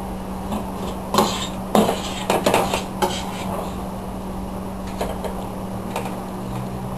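A utensil mixing a chunky potato, lobster and vegetable mixture in a plastic basin: a run of scrapes and soft knocks in the first three seconds and a fainter one about five seconds in, over a steady low hum.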